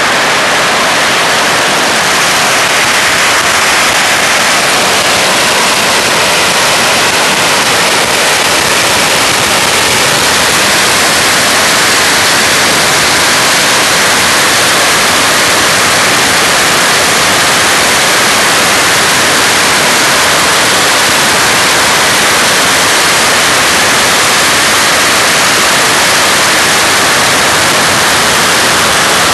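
Long rolls of linked firecrackers, 16,000 to a roll, exploding in one continuous dense barrage. The bangs come so fast that they blur into a steady, very loud crackling noise with no gaps.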